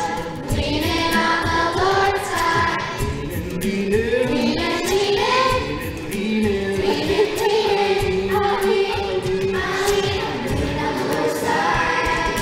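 Upbeat worship song with a sung melody over a backing track, a group of voices singing along.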